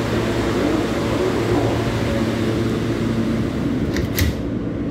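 Steady hum of a New York City subway car standing at a station with its doors open. About four seconds in, the doors slide shut with a short clatter and thump, and the sound turns duller afterwards.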